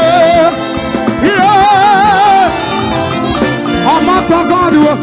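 Upbeat, Latin-style dance music with a lead voice holding long notes with vibrato over a steady band.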